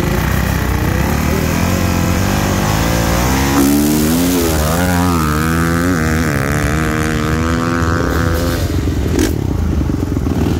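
Dirt bike engine running steadily, then about three and a half seconds in a dirt bike launches and accelerates hard, its engine pitch rising and dropping several times through the gears for about five seconds. Near the end a bike idles again.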